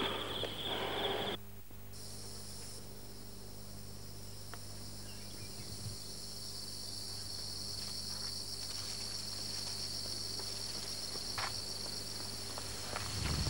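Outdoor insects chirring steadily in the background, a continuous high-pitched shrill that jumps to a higher pitch about a second and a half in, over a low steady hum.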